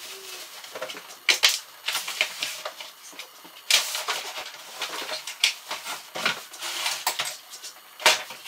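Cardboard packaging and plastic wrap being handled: irregular crinkling rustles and soft knocks as a boxed table saw is pulled out of its box.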